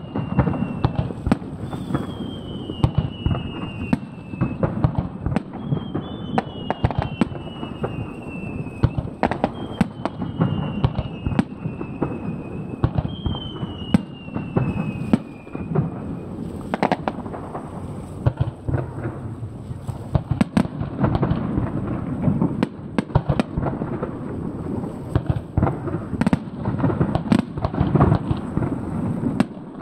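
Fireworks display: aerial shells bursting in rapid, irregular bangs that run on without a pause. Through the first half, whistles falling in pitch sound over the bangs, one about every two seconds.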